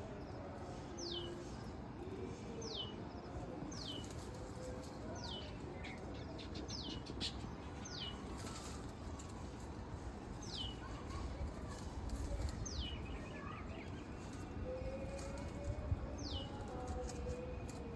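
A bird giving a short, high whistle that falls in pitch, repeated every one to two seconds, over a low rumble.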